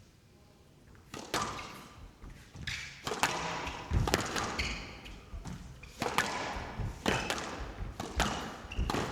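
Squash rally: the hard rubber ball cracked by rackets and smacking off the court walls and floor in an irregular series of sharp hits, about one or two a second, each with a little echo, starting about a second in after a quiet moment, with short shoe squeaks between them.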